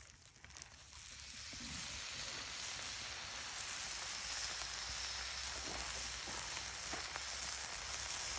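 Food sizzling on a fire-pit grill: a steady frying hiss that swells up about a second in and then holds.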